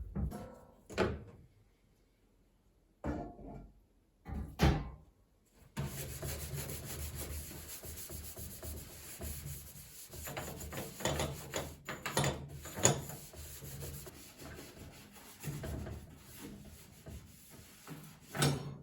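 Several sharp knocks of wood being handled, then a long stretch of steady rubbing and scrubbing over a low hum, broken by scattered knocks.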